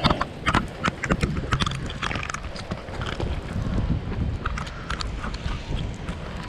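Irregular close knocks, taps and rubbing of hands on a rain-wet camera as it is picked up and handled, over the hiss of rain.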